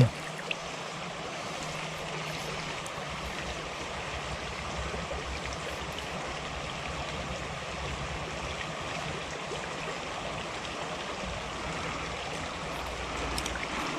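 Small creek running steadily: a continuous, even rush of flowing water.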